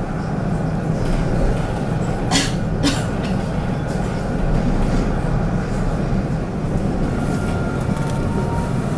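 Tram running along its rails, heard from inside the car: a steady rumble of the wheels and running gear, with two short sharp high sounds about two and a half and three seconds in.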